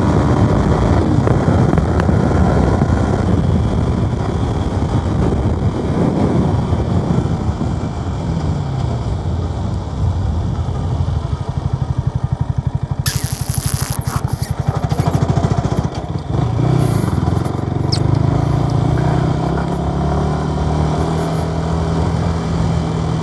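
Yamaha YZF-R125's 125 cc single-cylinder four-stroke engine heard from the saddle while riding, with wind noise. The engine note falls as the bike slows, then it runs at low revs with a short burst of hiss near the middle, and it keeps running steadily at low revs while the bike rolls slowly.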